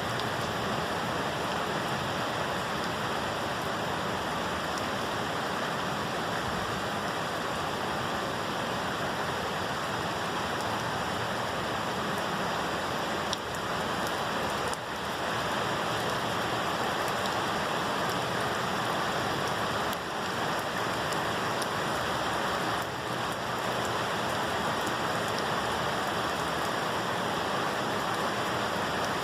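Steady, heavy rain falling, a dense even hiss without pause.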